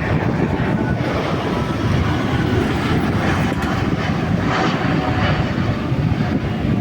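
Jet airliner's engines running, a steady loud rumble with a faint whine on top.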